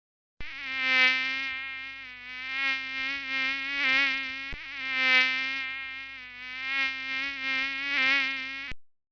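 Flying mosquito sound effect: a buzzing whine that wavers slightly in pitch and swells and fades several times, as if flying close past the ear. It starts about half a second in and cuts off abruptly near the end.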